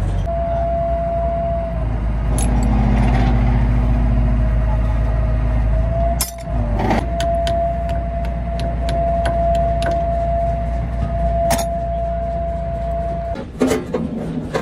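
Hyundai excavator running with its engine bay open: a steady low engine hum with a steady high whine over it, and scattered sharp metallic clicks and taps. Near the end the whine stops and the hum drops.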